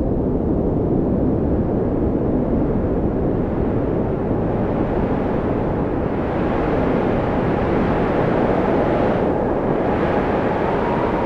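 Blizzard wind blowing hard: a steady low rushing with faint whistling tones that rise and fall, turning brighter and hissier about halfway through.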